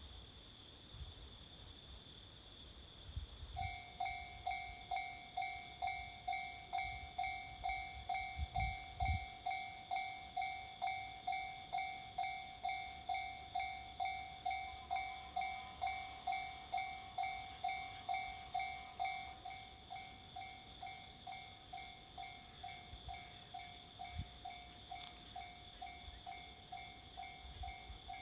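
Japanese level crossing's electronic warning bell starts ringing about three and a half seconds in, a clanging two-pitch tone at about two strikes a second, signalling an approaching train; it grows quieter partway through. A steady high tone sounds underneath.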